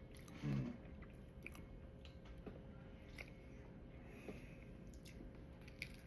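Faint chewing of a deep-fried Biscoff cookie, with small scattered mouth clicks and a brief hum of voice about half a second in.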